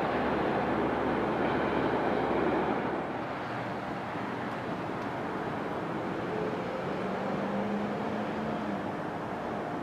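Long Island Rail Road train rumbling past, easing off after about three seconds to a lower steady rumble.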